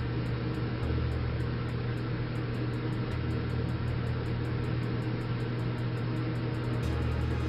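Steady low hum and hiss of a running machine, unchanged throughout.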